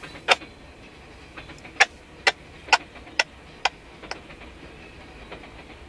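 Freight train tank cars rolling past, their steel wheels clicking sharply over rail joints: one click soon after the start, then a run of six evenly spaced clicks about two a second, then only faint ticks.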